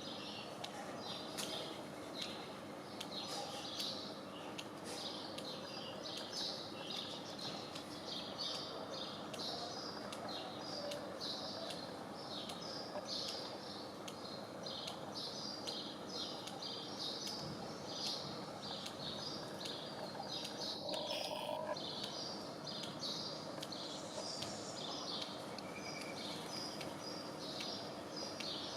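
Small birds chirping continuously, short high chirps several times a second, over a faint steady hum.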